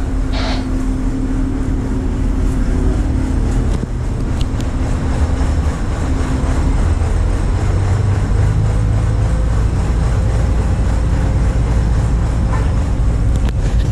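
Cargo ship's diesel engines running, a steady low rumble heard on board, with a hum whose pitch shifts partway through.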